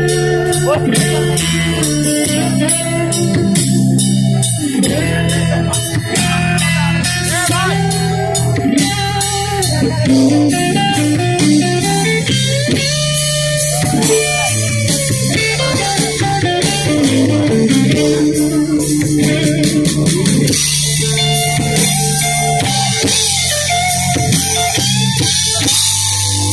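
Live band playing loudly: electric guitars with bending lead lines over a drum kit, the cymbals growing louder in the last few seconds.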